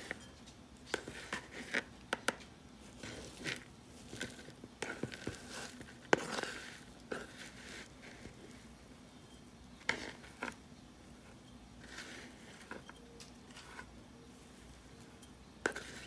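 Loose soil from an expanded soil pellet being scraped off a black tray and tipped into a ceramic pot: irregular scrapes and light taps of the utensil on the tray and pot rim, with a soft rustling pour of falling soil about six seconds in.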